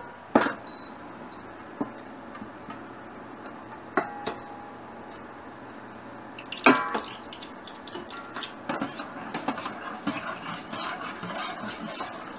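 Metal ladle knocking and scraping inside a black wok as oil is spread around it: a few separate clanks, a loud ringing clank about two-thirds of the way through, then a quick run of small scrapes and taps.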